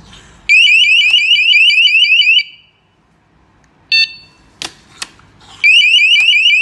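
TOWODE door alarm sounding its siren, a shrill rising chirp repeated about five times a second, which cuts off after about two seconds. After a pause it gives one short beep and two sharp clicks, then the siren starts again near the end.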